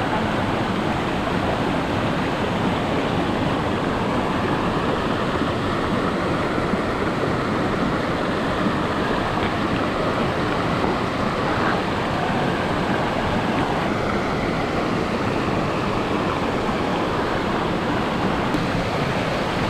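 Steady, even rush of a river flowing over rocks at a waterfall.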